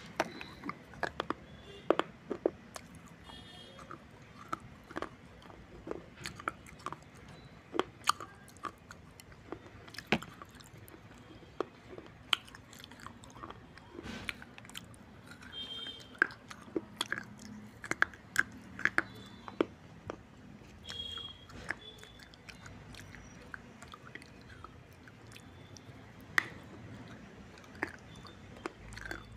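Close-up biting and chewing of pieces of a fired-clay surai (water pot) coated in red clay paste: sharp, irregular crunches and cracks as the dry clay breaks between the teeth, several to a second at times.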